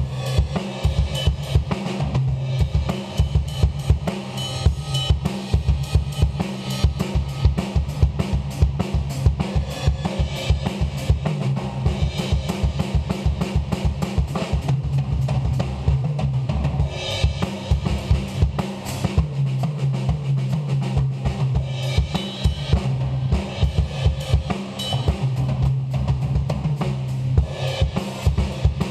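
A Mapex acoustic drum kit played in a fast, continuous groove: bass drum, snare and cymbals with many strokes a second, played to check the microphones before recording.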